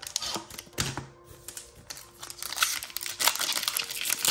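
Crinkling of a foil trading-card booster pack and cards being handled, a dense run of irregular small crackles and clicks.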